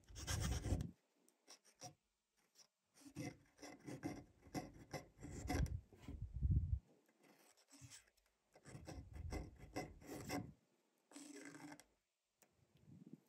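Pen nib scratching across paper in a series of calligraphy strokes, each lasting from a fraction of a second to about a second and a half, with short pauses between them.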